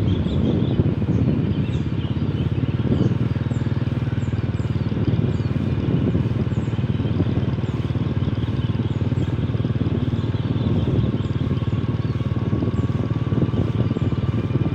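Steady, continuous motor-vehicle engine noise, low and rumbling, with faint short high chirps repeating above it.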